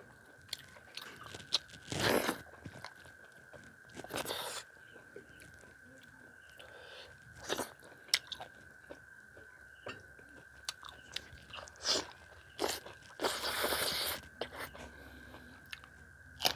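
Close-up eating by hand: chewing and crunchy bites of rice with chicken chilli and okra fry, in separate bursts a few seconds apart, with a longer one about three-quarters of the way through.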